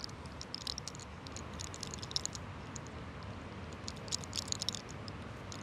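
Hair cracking: a lock of hair twisted between the fingers and pulled at the scalp, giving short clusters of crisp, faint crackling clicks three times. In this technique each crackle is taken as a 'sol' (trapped sun heat) being drawn out of the head.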